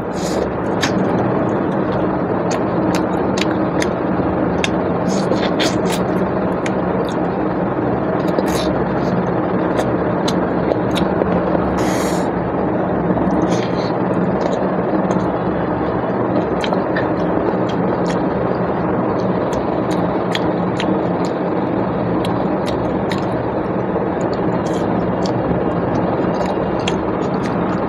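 Eating sounds: mutton and rice being chewed, with many short, sharp mouth clicks and smacks. Under them is a loud, steady hum.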